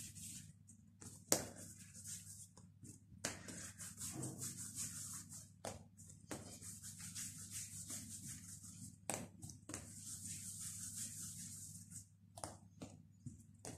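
Hands rolling pieces of yeast dough into balls on a silicone pastry mat: soft, faint rubbing, broken by a few sharp taps.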